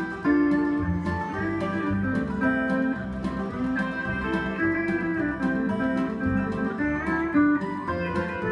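Pedal steel guitar being played: picked notes and chords, some bent upward in smooth glides.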